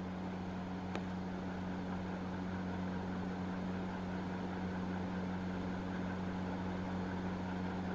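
A steady low hum with an even hiss beneath it, and a single faint click about a second in.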